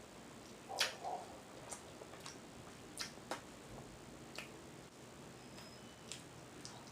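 Close-miked mouth sounds of eating: a scattering of sharp, wet smacks and clicks of chewing, the loudest about a second in.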